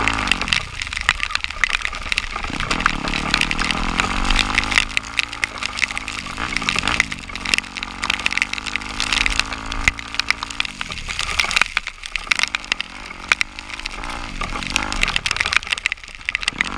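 Off-road vehicle engine running under load, its pitch rising and falling as the throttle changes several times, under a dense crackle of rain and splashing.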